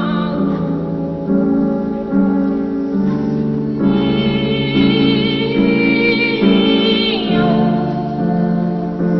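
A song: boys' voices singing held notes over instrumental accompaniment, with a downward sliding note about seven seconds in.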